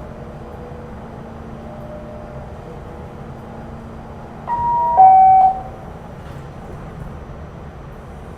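R46 subway car's door-closing chime, about halfway through: a higher tone, then a louder, lower tone, lasting about a second in all. Under it runs the steady hum inside the car.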